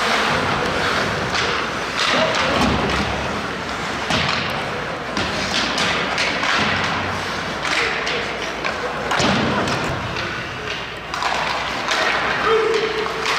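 Ice hockey play on a rink: repeated thuds and knocks of players, sticks and puck against the boards and ice, over the busy noise of the game.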